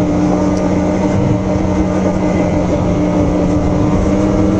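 Two-stroke snowmobile engine running at a steady speed, holding an even drone with no change in pitch.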